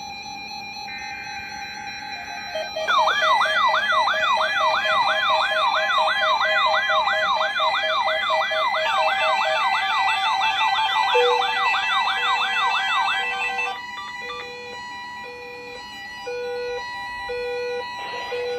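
A weather alert radio's alarm going off during the weekly warning alarm test: a fast siren tone sweeping up and down about two and a half times a second for around ten seconds. A steady repeating beep joins about 11 seconds in and continues after the siren stops.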